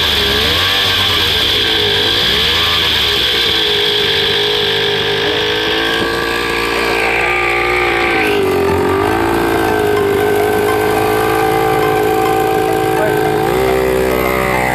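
A 49cc two-stroke pocket bike engine running on a newly fitted XRM110 carburettor. The revs dip and pick up again a few times, then rise near the end.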